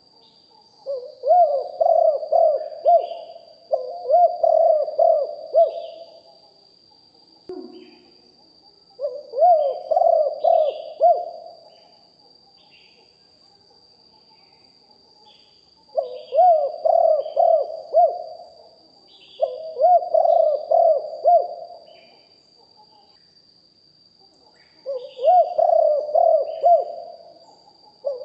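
Spotted dove cooing: about six deep multi-note coo phrases, each lasting two to three seconds, coming singly or in pairs with pauses between them. Faint high chirps of small birds and a steady thin high whine run underneath.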